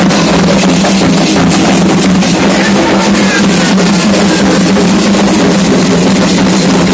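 Candomblé ritual drumming on atabaque hand drums: a loud, dense, unbroken beat of many drum strokes.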